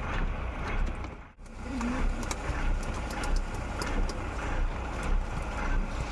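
Fishing boat's engine running steadily, with wind and sea noise. The sound cuts out briefly about a second in, then resumes.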